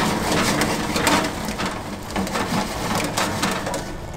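Small potatoes rolling and rattling on a metal sheet pan as it is shaken on the oven rack, a continuous irregular clatter.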